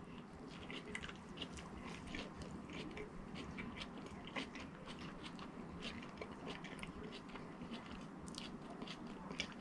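A person chewing fast food close to the microphone, faint: a steady run of small wet mouth clicks and soft crunches.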